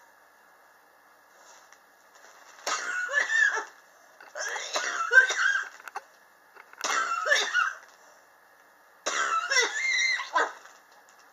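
A person coughing in four separate bouts of about a second each. It is a persistent cough that has gone on for about three years.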